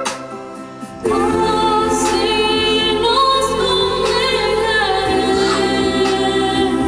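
Woman singing a slow Christian hymn in Spanish into a microphone, accompanied by a Yamaha Tyros arranger keyboard; after a quieter first second, the voice comes in over the keyboard's sustained chords.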